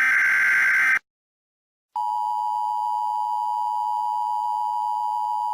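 Emergency Alert System header: the last of the harsh, buzzing digital data bursts ends about a second in. After a second of silence, the long steady attention tone starts and holds unchanged.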